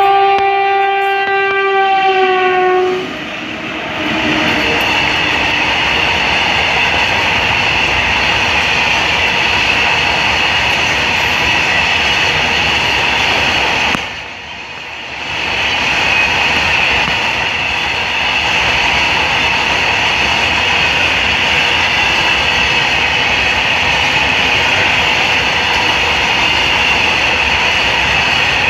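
WAG-5 electric locomotive's air horn sounding one long blast that ends about three seconds in, its pitch falling slightly as it dies away. Then a long rake of coal hopper wagons rolls slowly past close by, a steady rumble and clatter of steel wheels on rail with a high metallic ring, dipping briefly about halfway through.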